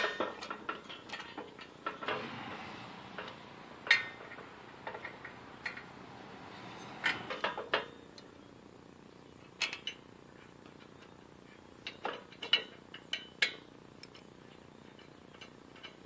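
Scattered small metal clicks, taps and clinks of hand assembly: bolts being fitted by hand through the cast base of a hydraulic bottle jack onto a steel shop-press frame.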